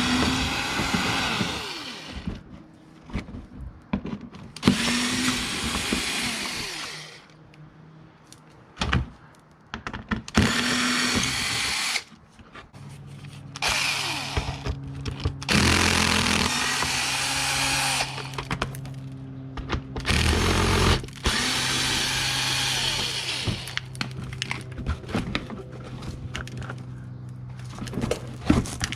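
A handheld power tool running in bursts of about two to four seconds, five times, its pitch sliding down as it winds down after each run.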